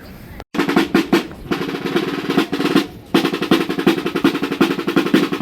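Rapid drum roll of fast, even drum strokes, snare-like, with a brief break about three seconds in. It starts and stops abruptly.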